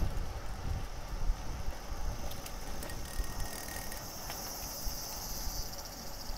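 Wind and road rumble on the microphone of a moving road bike, with a steady high buzzing of insects in the roadside vegetation that grows louder through the second half.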